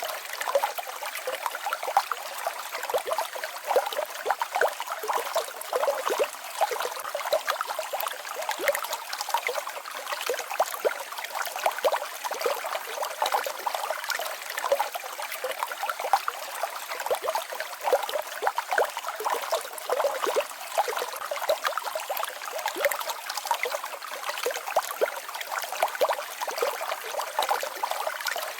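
Small waterfall and babbling stream: water splashing and trickling over rocks, a steady bubbling rush.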